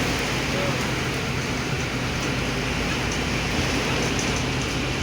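Heavy rain falling on and around a car, a steady hiss over a low, steady engine hum.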